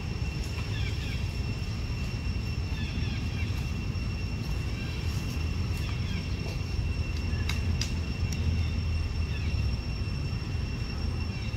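Outdoor ambience: a steady low rumble under a continuous high insect drone, with scattered faint short chirps and a couple of sharp clicks a little past the middle.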